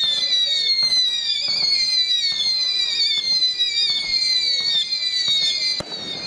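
Festival fireworks: a continuous run of overlapping whistles, each falling slightly in pitch, with bangs scattered through and one sharp bang near the end.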